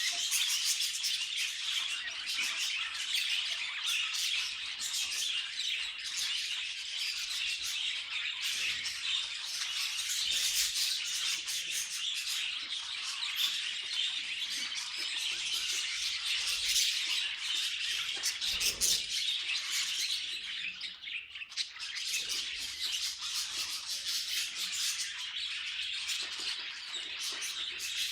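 Budgies chattering and chirping in a dense, continuous stream of quick high chirps and squawks, easing briefly about two-thirds of the way through.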